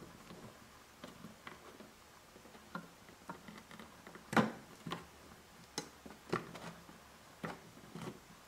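Light, irregular clicks and taps as the rear panel of a MOTU UltraLite audio interface is worked over the jacks and connectors of its circuit board, the loudest knock about four seconds in.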